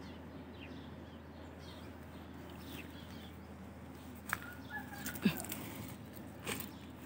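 Leafy lead tree branches being handled, giving a few sharp snaps and rustles over a faint steady hum. The loudest snap, with a dull knock, comes about five seconds in, and a short bird call is heard around the same time.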